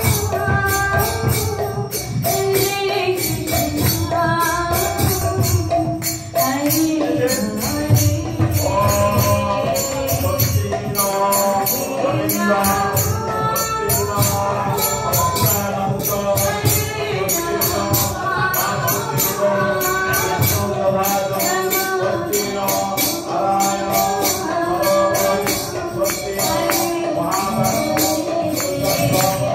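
Devotional kirtan: voices singing a chant over a steady rhythm of jingling hand-cymbal strokes.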